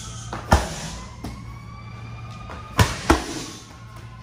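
10-pound medicine balls slammed onto a rubber gym floor: three heavy thuds, one about half a second in and two close together near the end.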